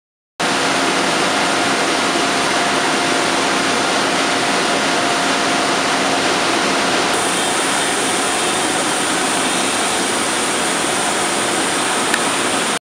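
Narrow-web label printing press running: a loud, steady machine noise with a few constant hums. It turns brighter and hissier about seven seconds in, and it starts and stops abruptly.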